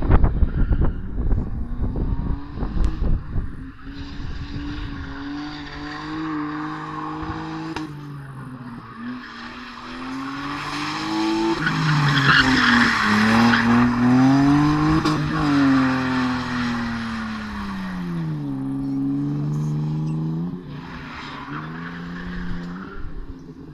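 A BMW E30 coupe drifting on a loose, dusty surface: its engine revs rise and fall again and again as it slides, with skidding tyre noise, loudest in the middle. Heavy low rumbling in the first few seconds.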